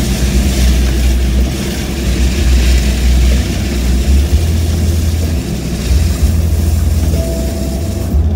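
Isuzu Mu 4x4 driving over a beach of gravel and sand, heard from inside the cab: steady engine and tyre noise over a heavy, uneven low rumble.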